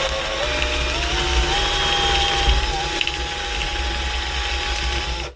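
Cordless drill with a long bit boring into EPP foam. Its motor whine climbs in pitch as it speeds up, runs steady, then stops abruptly near the end.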